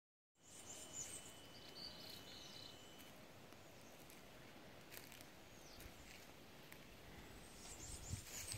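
Faint outdoor ambience with a few short bird chirps in the first three seconds over a thin, steady high tone, such as an insect's. Soft footsteps begin near the end.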